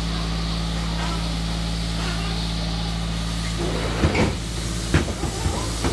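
A steady low machine hum in a workshop, then from about four seconds in a few sharp metallic knocks and clanks as a mechanic works on the steel chassis above him.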